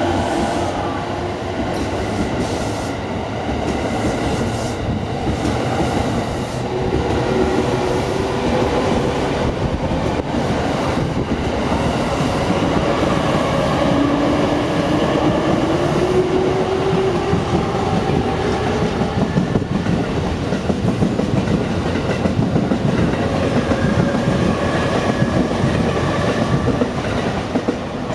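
A JR East E217 series electric commuter train pulls out and runs past close by, picking up speed. A whine rises in pitch about halfway through, and the wheels clatter over rail joints as the cars go by. The sound eases a little as the last car clears, right at the end.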